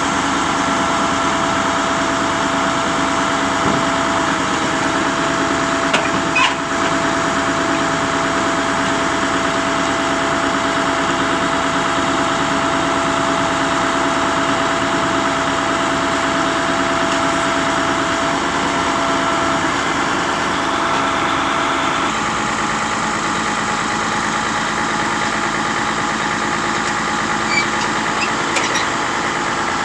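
Concrete pump truck's diesel engine running steadily, with a few light clicks and knocks. The engine's tone changes a little about twenty-two seconds in.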